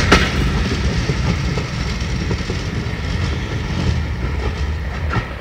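A train of passenger coaches rolling away, wheels giving a few sharp clicks over rail joints, over the low rumble of the Class 37 diesel locomotive hauling them, fading as the train draws off.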